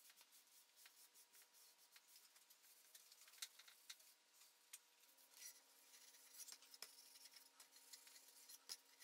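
Faint rag wiping wood stain onto softwood boards: soft scrubbing and scratching with small scattered clicks, busier from about halfway through, over a faint steady hum.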